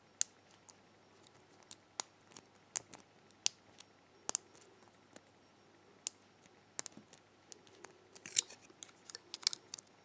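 Lock picking in the 18-wafer Duo core of an Illinois padlock: a metal pick works the wafers against a tension wrench, giving irregular sharp metallic clicks that come thicker and faster near the end.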